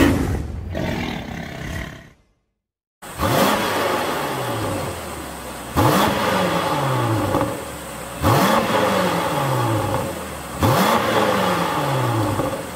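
BMW F96 X6 M's twin-turbo V8 through a Fi Exhaust valvetronic system with its valves closed: idling, then blipped four times about two and a half seconds apart, each rev rising sharply and falling back to idle. Before the engine comes in, a logo sting fades out and there is about a second of silence.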